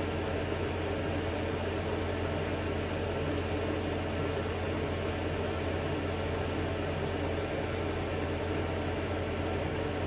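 Steady, unchanging fan-like hum with a low drone and an even hiss.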